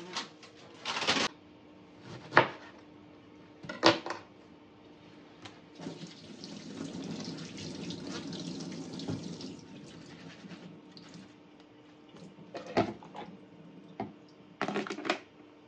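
Kitchen tap running into a sink for about four seconds, with several sharp knocks of kitchen things being handled before and after it.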